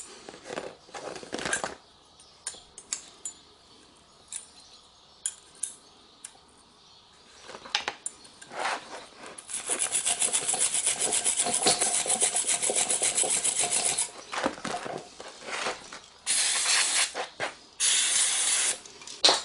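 Loose metal brake hardware clicking as it is handled. Then a few seconds of fast rasping strokes against the steel caliper bracket, followed near the end by two hissing bursts from an aerosol spray can.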